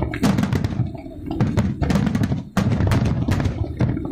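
Aerial fireworks bursting in rapid succession: a dense run of sharp bangs over heavy booming, with a brief lull about two and a half seconds in.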